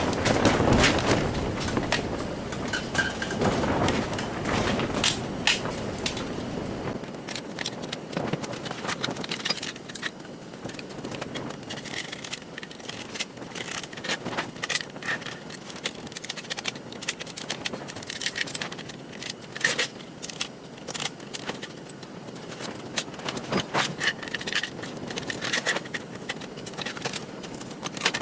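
Scattered clicks, knocks and scrapes of hand tools and small metal parts being handled while a garage door opener is taken apart. Wind rumbles on the microphone for the first several seconds.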